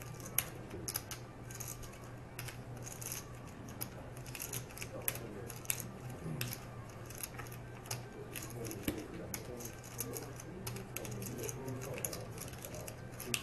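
Poker chips clicking as players handle their stacks: many irregular sharp clicks over a steady low hum, with faint murmuring voices.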